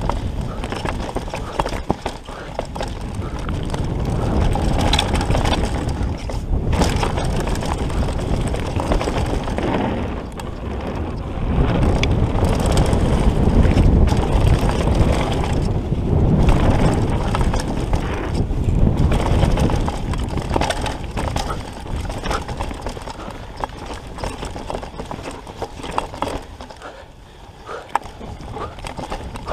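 Downhill mountain bike riding fast over a rough dirt trail: tyres rumbling on the ground, the bike clattering and rattling over bumps, with wind noise on the camera's microphone. It is louder around the middle.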